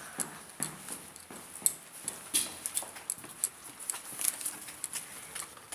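Footsteps on a hard floor: a walking run of sharp steps, two or three a second.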